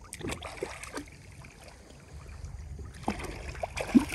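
Shallow seawater lapping among shore rocks over a steady low rumble of wind on the microphone. A few faint, brief sounds come about a second in and again near the end.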